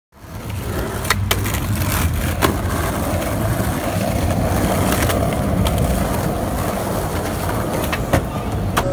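Skateboard wheels rolling on concrete sidewalk with a steady low rumble, broken by a few sharp clacks of the board.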